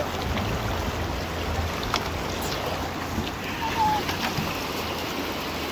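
Steady rush of a rocky mountain creek's running water, with a few faint clicks.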